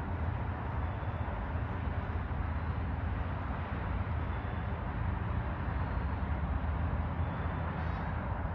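Steady low rumble of distant traffic, even throughout with no distinct events.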